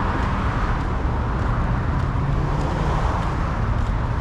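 Steady road traffic noise, a continuous rumble of passing vehicles.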